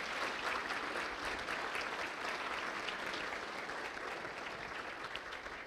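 Audience applauding, a roomful of people clapping, dying away near the end.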